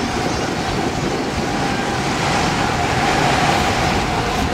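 Steady wind rushing over the camera microphone from a Ferris wheel gondola, with a faint steady hum underneath.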